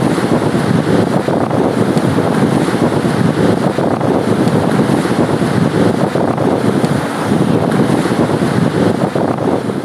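Strong wind buffeting the microphone: a loud, steady, rough rush without pauses.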